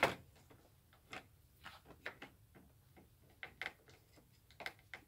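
A hand screwdriver backs out a plastic screw: one sharp click at the start, then light, irregular clicks and ticks, a couple a second.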